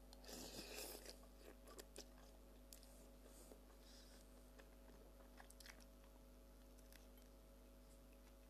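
Faint mouth sounds of a person eating instant noodle soup: a brief slurp of noodles in the first second, then soft chewing with small clicks.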